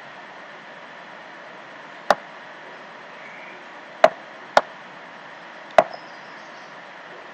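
Four sharp computer mouse clicks over a steady background hiss: one about two seconds in, two in quick succession about half a second apart, and one more just over a second later.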